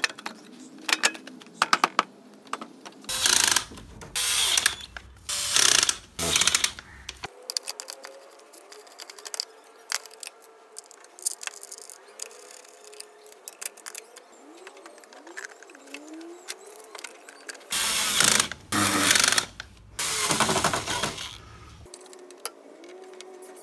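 Screws being driven back into a Suzuki Access 125 scooter's drive-belt cover, heard as two groups of ratcheting mechanical bursts, each burst about a second long.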